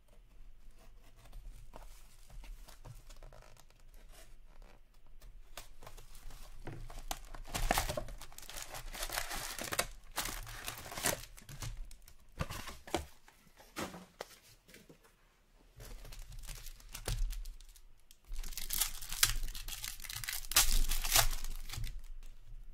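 Foil hockey card pack wrappers being torn open and crinkled by hand, in two louder stretches of tearing about seven seconds in and again from about eighteen seconds in, with quieter handling of packs and box between.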